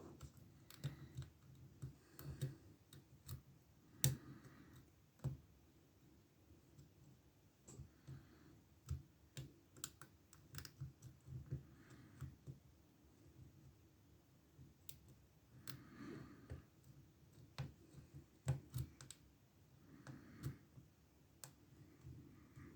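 Faint, irregular clicks and light scraping of a lock pick working the pin stack of a Ruko lock cylinder under tension, single-pin picking.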